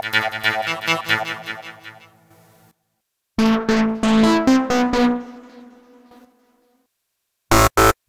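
Arturia Pigments 3.2 software synthesizer presets auditioned in turn. First the 'Aggrestab' harsh stab lead plays a quick run of notes that fades out; after a short gap the 'Fat Dirty Lead' plays a few lower notes and dies away. Near the end the 'No Messing About' distorted FM lead starts in loud, chopped stabs.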